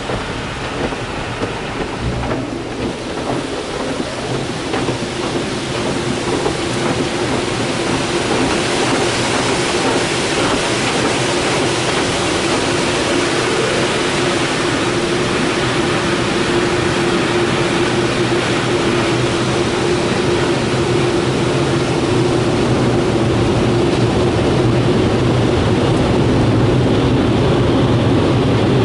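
Inside a car going through a Ryko tunnel car wash: water spray and wash cloths rush and patter over the car, then give way to the dryer blowers' steady, loud rushing air with a fan hum. The blowers come in gradually, growing louder from about a quarter of the way in.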